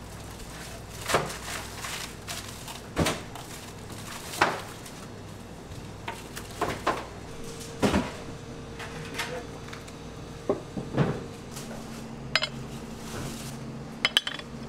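Scattered light knocks and clinks of small ceramic dishes being handled and set down on a wooden board and a serving plate, about ten in all, over a faint steady hum.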